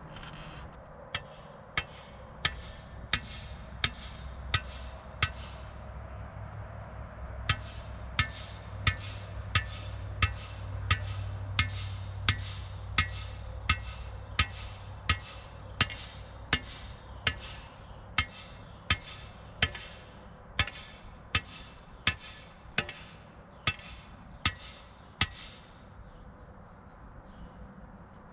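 Hammer blows driving a fence stake: sharp ringing strikes about one every two-thirds of a second, with a short pause about five seconds in, stopping a few seconds before the end. Crickets chirr steadily underneath.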